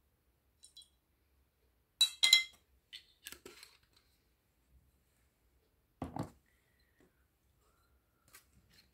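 A metal spoon clinks against a small ceramic bowl about two seconds in, with a brief ringing, followed by a few lighter clicks; a duller knock comes about six seconds in.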